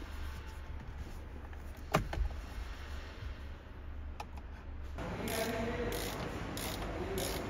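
Workshop work on a car's steering wheel: a steady low hum with a single sharp click about two seconds in. From about five seconds, louder mechanical noise begins, with clicks repeating several times.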